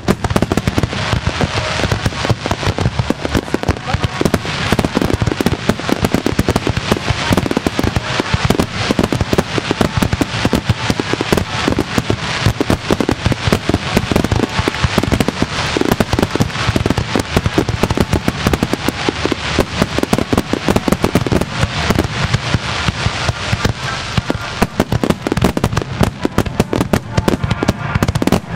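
Fireworks going off in a wide starmine barrage: a dense, unbroken run of crackling pops and bangs, many every second, with no pause.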